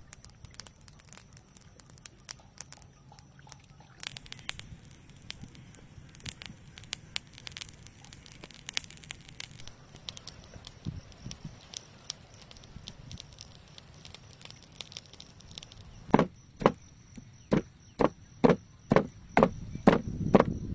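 A wooden pestle pounding yellow herb paste in a stone mortar, steady dull thuds about two to three a second that begin about three-quarters of the way through. Before that there are only faint scattered clicks and rustles.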